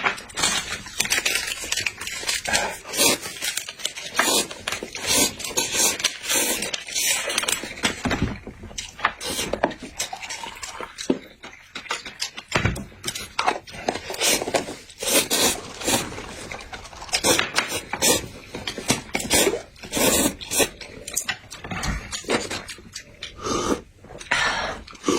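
Close, busy clicking, scraping and rustling of things being handled, with no steady tone.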